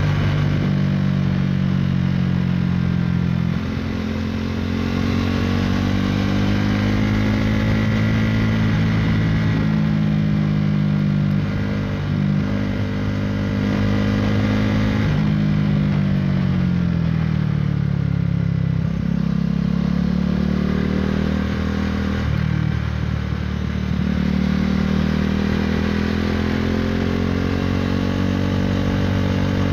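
KTM Duke 390's single-cylinder engine running through an Akrapovic Racing Line exhaust under way, its note falling and rising again several times as the throttle is eased and reopened through the gears.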